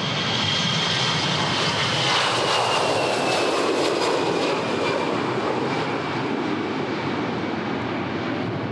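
Airbus A320-family twin-jet taking off and climbing away at takeoff thrust: a steady jet roar with a high engine whine that slowly falls in pitch as the aircraft passes.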